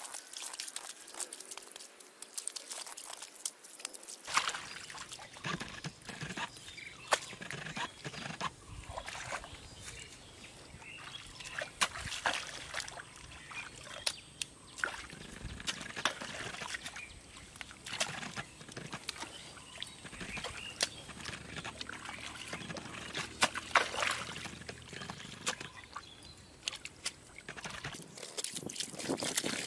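Hands scooping and splashing in shallow muddy water: irregular wet sloshes and slaps of mud and water, a few sharper than the rest.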